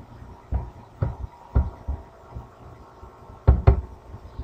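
Irregular soft thumps with clicks, about six of them, from someone working a computer's keyboard and mouse at a desk while navigating code. The loudest is a quick pair about three and a half seconds in. A faint steady hum runs underneath.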